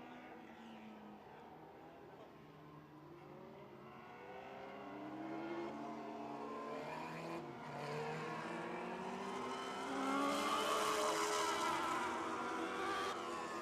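Several Lightning sprint race cars' engines running at caution pace as the field circles under the yellow flag. They pass by, growing louder to a peak about ten seconds in, then fading a little.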